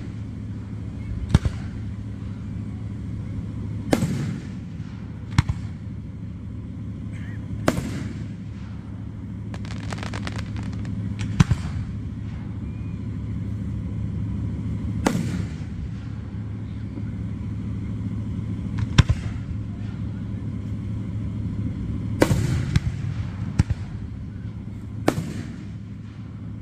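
Aerial fireworks shells bursting with sharp bangs every few seconds, twice in quick clusters of several reports, over a steady low background hum.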